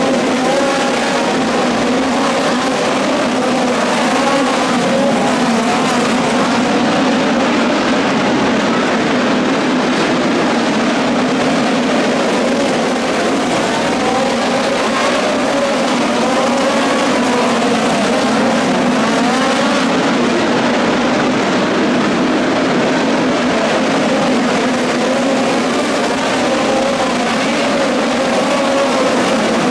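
Midget race car engines running hard on track inside an arena, several cars at once, their pitch rising and falling as they lap.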